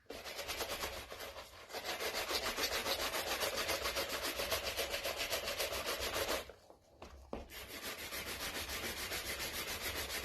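Old bristle brush buffing a dyed vegetable-tanned leather pouch in rapid back-and-forth strokes. The strokes stop for about a second two-thirds of the way in, then start again.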